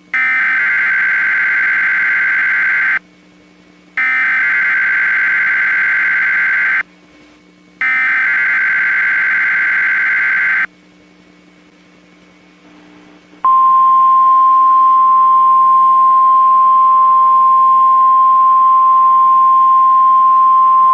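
NOAA Weather Radio Emergency Alert System signal: three bursts of the SAME digital header, each about three seconds long with a second's gap between them. After a short pause comes the steady single warning alarm tone, starting about 13 seconds in.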